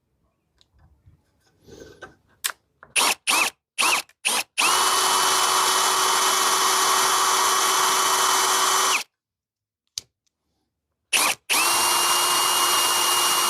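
Electric drill with a metal twist bit drilling out a rivet to remove it: a few short trigger bursts, then a steady run of about four seconds with an even whine. After a pause with a single click come two more short bursts and another steady run.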